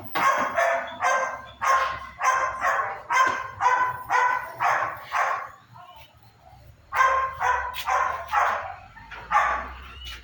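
A dog barking in quick repeated barks, about two or three a second. The barking pauses briefly around the middle, then starts up again in a second run.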